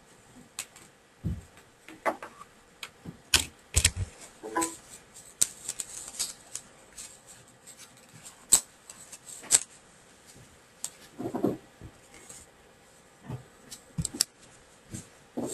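Irregular sharp clicks and knocks, well over a dozen scattered through, a few with a low thump, over faint background hiss.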